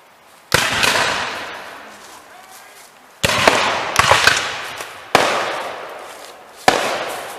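Black-powder muskets firing blanks in a reenactment skirmish: five sharp reports, spaced irregularly, one of them a quick ragged cluster of several shots, each followed by a long echoing tail.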